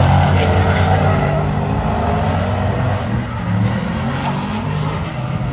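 Two drift cars sliding in tandem at full throttle, their engines revving hard with the pitch stepping up and down as the drivers work the throttle, over the hiss and screech of tyres spinning in smoke.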